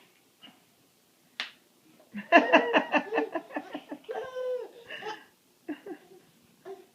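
A young child with the hiccups hiccups once, then breaks into a burst of rapid laughter about two seconds in, followed by a high squealing laugh and a few short giggles.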